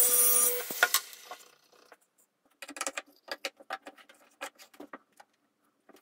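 Mitre saw's spinning blade cutting through a wooden board, the loud cut ending and the blade dying away about a second in. After a pause, a run of short, light knocks and clicks.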